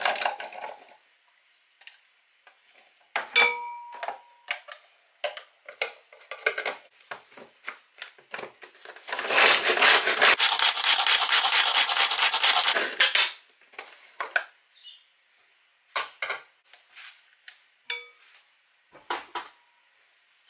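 Manual pull-cord hand chopper worked in quick successive pulls for about four seconds in the middle, a fast rattling whirr of the cord and spinning blades chopping diced beetroot. Before and after come scattered clicks and knocks of the plastic chopper container and lid being handled, with one brief ringing clink about three seconds in.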